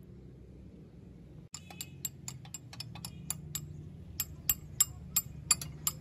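Steel combination spanner clicking and clinking against a bolt head as it is worked in short strokes, about four sharp metallic clicks a second starting about a second and a half in.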